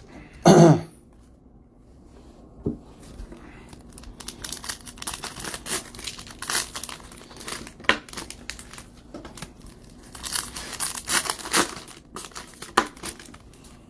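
Plastic wrapping crinkling and tearing in irregular bursts as card packaging is handled and opened, with a thicker run of crackling about ten seconds in.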